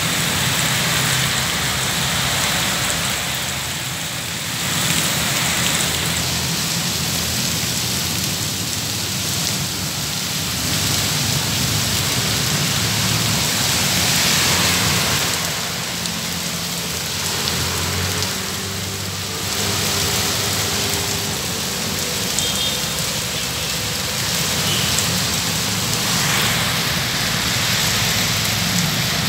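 Heavy rain pouring down onto a road and pavement, a dense hiss that swells and eases every few seconds, with cars passing on the wet road under it.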